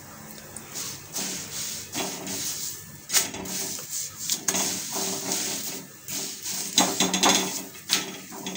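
Repeated scraping and tapping against an iron tawa as a methi paratha is lifted and flipped over to roast its other side.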